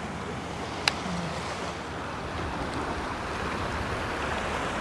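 Steady wash of shallow bay water around waders, with wind on the microphone, and a single sharp click about a second in.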